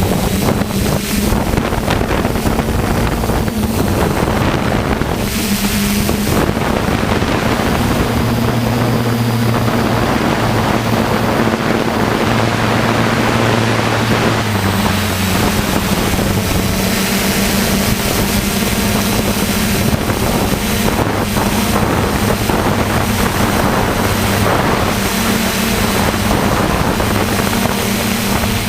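DJI F450 quadcopter's propellers buzzing in flight, with wind rushing over the onboard GoPro's microphone. The buzz holds a steady pitch that shifts slightly up and down a few times as the motor speed changes.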